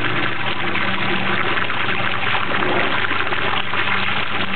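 Water running from a garden hose and splashing onto the bare floor of an empty swimming pool: a steady, even rush, with a steady low hum underneath.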